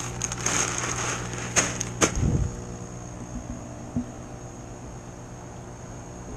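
Plastic bag crinkling for the first couple of seconds, with two sharp clicks and a low thump about two seconds in. Under it, the steady hum of an electric air pump feeding the hydroponic buckets' air stones.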